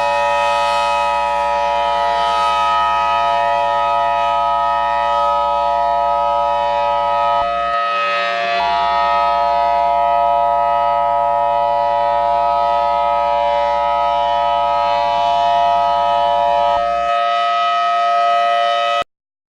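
Loud electronic emergency alert tone: several steady pitches sounding together without gliding, one of them dropping out about seven and a half seconds in and returning about a second later, then the whole tone cutting off abruptly near the end.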